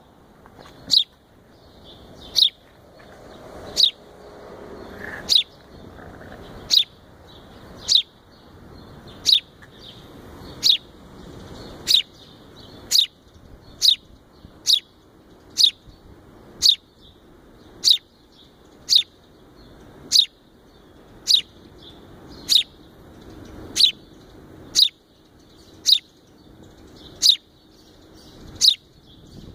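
A fledgling house sparrow chirping: single short, high chirps repeated at a steady pace of about one a second.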